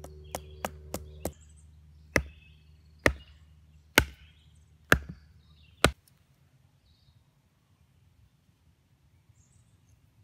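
Hatchet striking the top of a sharpened wooden stick, driving it into the ground as a stake: four quick light taps, then five heavier blows about a second apart.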